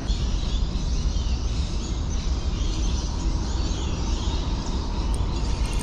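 Outdoor ambience: a steady low rumble under a light hiss, with faint bird chirps.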